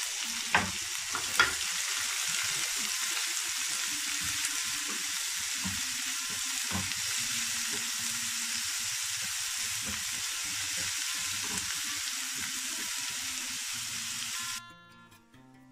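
Chopped onions frying in hot oil in a non-stick pan, a steady sizzle while they are stirred with a wooden spatula, with two sharp knocks in the first second and a half. The sizzle cuts off suddenly near the end, leaving soft acoustic guitar music.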